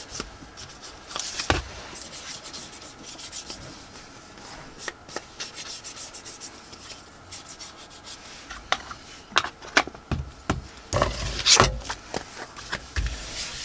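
Paper and card being handled and rubbed on a work surface: scattered rustles, scrapes and light taps, with a louder run of scraping strokes about eleven seconds in.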